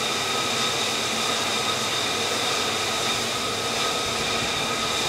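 Jet engine running steadily at idle: an even rushing noise with a steady high whine.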